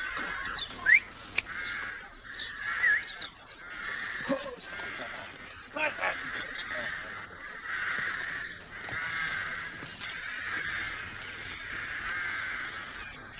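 Birds calling: a continuous chorus of wavering calls with short higher chirps over it.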